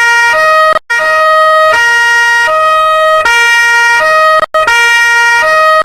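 Two-tone police siren alternating in steps between a high and a low pitch, each held for under a second. It drops out briefly twice and cuts off abruptly at the end.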